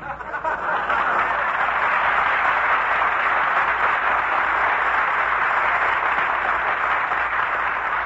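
Studio audience laughing and applauding at a gag, a long steady wave of clapping and laughter.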